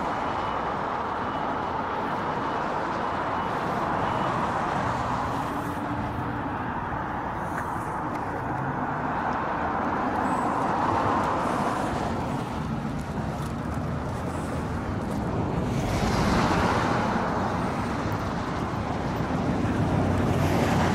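Steady road traffic noise from cars driving past, swelling a few times as vehicles go by.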